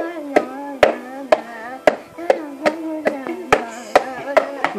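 Orange plastic bucket beaten like a drum by hand, a sharp hit about twice a second in a steady beat. A child hums a long, slowly wavering note underneath.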